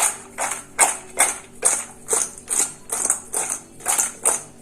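Salad being tossed in a bowl with serving utensils: an even, rhythmic swishing clatter of about two to three strokes a second.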